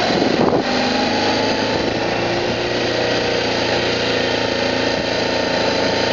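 BMW G650GS single-cylinder motorcycle engine running under way, its note rising slowly as the bike gathers speed, over a steady rush of wind noise.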